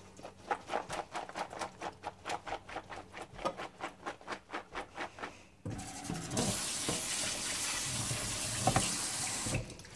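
Drained beans shaken in a colander, a rhythmic shuffling rattle about four times a second. Past halfway a kitchen faucet runs water over them in a steady stream for about four seconds, then stops.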